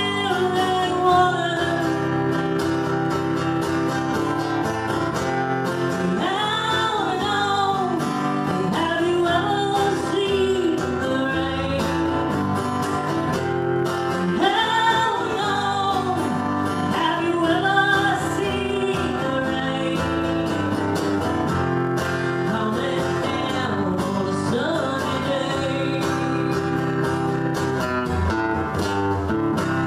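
A country-style song with guitar accompaniment and a singing voice, played steadily throughout.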